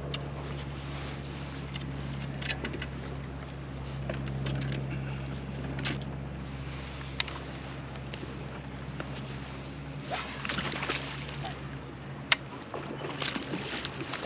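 Steady low hum of a bow-mounted electric trolling motor that dies away about twelve seconds in. Under it, water laps at the hull and light clicks of spinning reels and tackle come and go, with a sharp click about twelve seconds in as the loudest sound.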